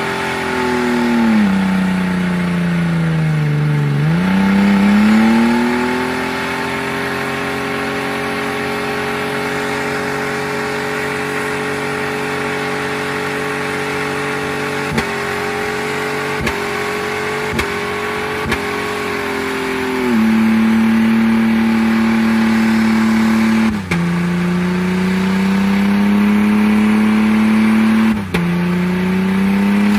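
Car engine revving hard during a burnout, its wheels spinning in clouds of tyre smoke. The revs sag and climb back early on, stutter briefly four times around the middle, then hold high with a few sudden drops and recoveries near the end.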